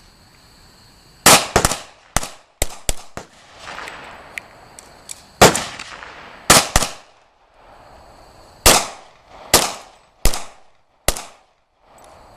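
Pistol shots: about a dozen sharp, loud reports in irregular strings, some in quick succession and others about a second apart, each with a short ringing tail.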